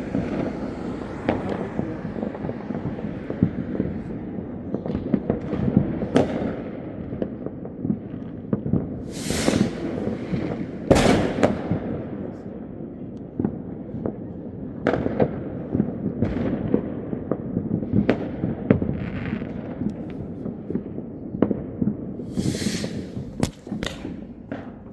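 New Year's fireworks going off continuously: a dense run of bangs and crackles, with louder hissing bursts about ten seconds in and again near the end.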